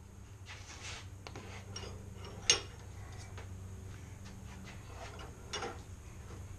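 Bench vise being tightened by its screw handle: light metal clicks and knocks, with one sharp metallic click about two and a half seconds in, over a steady low hum.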